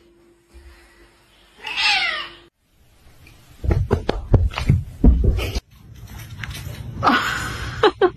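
A cat meows once with a falling pitch about two seconds in. A run of quick knocks and thumps follows, and near the end there is a harsh, noisy stretch.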